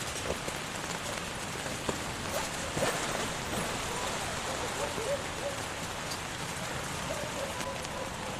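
Steady heavy rain falling, with scattered sharper drop impacts.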